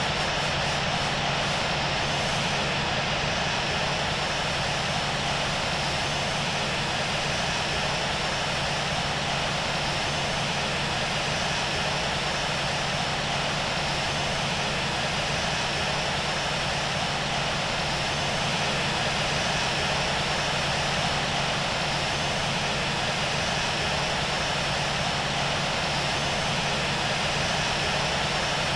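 Boeing 737-700's CFM56-7B jet engines idling on the ground before takeoff, a steady hum under an even rush of air.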